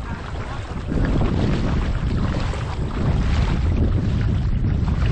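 Wind buffeting the microphone over the steady rush of a moving boat on the water, getting louder about a second in.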